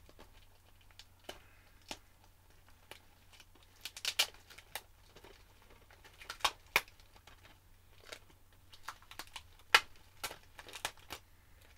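Plastic DVD cases and packaging being handled: irregular sharp clicks and taps, the loudest about four, seven and ten seconds in.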